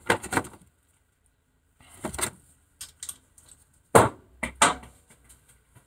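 Steel sockets and a socket extension bar clinking and knocking against each other as they are handled and swapped, in a few separate sharp metallic knocks.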